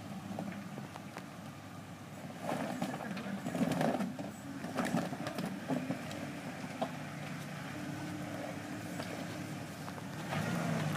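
Jeep Wrangler Rubicon's engine running at low revs as it crawls through a deep mud rut, with a busier, louder stretch of knocks and clatter about a third of the way in.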